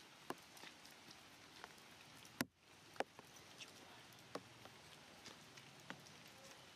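Near silence: a faint hiss with scattered single sharp ticks about a second apart, the loudest about two and a half seconds in.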